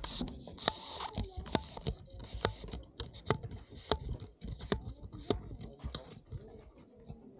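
Footsteps crunching on gritty ground, a sharp step about every two-thirds of a second, growing fainter near the end.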